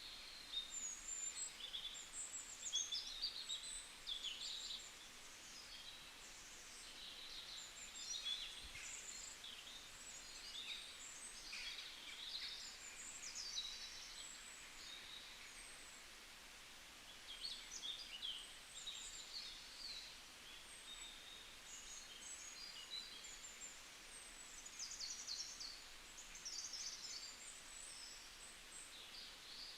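Several wild songbirds chirping and trilling in quick, overlapping phrases, over a faint steady background hiss.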